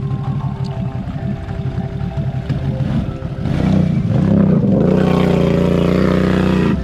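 Can-Am Outlander 850 ATV's V-twin engine revving with its wheels spinning in deep mud, the machine stuck. It runs lower and uneven at first, then climbs sharply about halfway through and holds at high revs.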